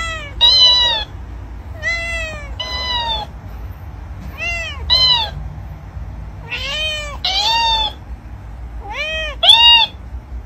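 Cat meows in five pairs, each call short and arching up and down in pitch. The second call of each pair is higher, as when a talking dancing-cactus toy repeats a meow back in a raised voice.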